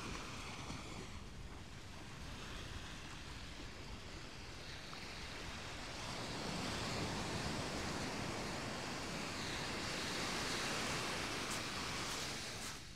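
Ocean surf: waves breaking and washing up the beach, swelling louder about halfway through and falling away near the end.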